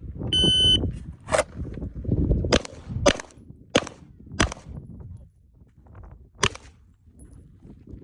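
A shot timer's electronic start beep, then a Springfield Echelon pistol firing: five shots in about three seconds and one more after a pause of about two seconds.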